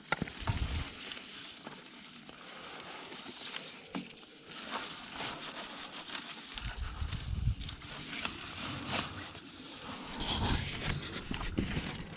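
Rustling and crackling of soil and roots as plant runners are dug and pulled out of the ground by hand, with many small snaps and clicks and, from about halfway, low thumps.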